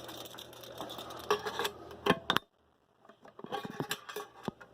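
Tape measure being handled while measuring a small box: scattered light clicks and rattles, with a brief dead-silent gap about halfway through.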